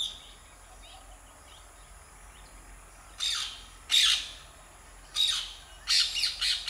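Rose-ringed parakeet giving short, harsh screeching calls: single calls starting about three seconds in, then a quick run of several calls near the end.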